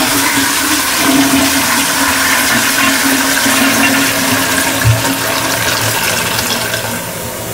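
Dual-flush toilet with a newly fitted flush valve being flushed: water rushing into the bowl and swirling down in a steady rush that eases slightly near the end. A brief low knock comes about five seconds in. The repaired toilet is flushing properly.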